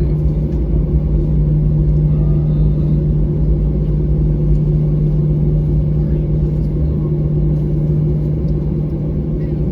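Steady low rumble with a strong even hum inside the cabin of a Boeing 737-800 taxiing on the ground, its CFM56 engines running at low taxi power.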